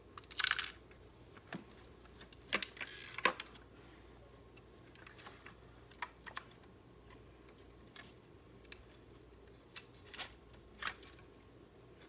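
Scattered light clicks and knocks from the parts of a Dirt Devil Plus hand vacuum being handled as it is taken apart, with two brief rustling scrapes in the first few seconds.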